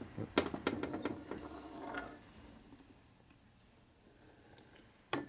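Metal engine parts being handled on a steel workbench: a few sharp clicks and clinks in the first two seconds, then quiet, then one sharp knock near the end.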